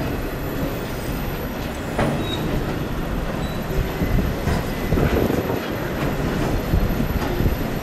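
Covered steel-coil wagons of a freight train rolling past with a steady rumble of wheels on rail. The wheels clack sharply a few times over the pointwork, and there are a couple of brief high wheel squeals.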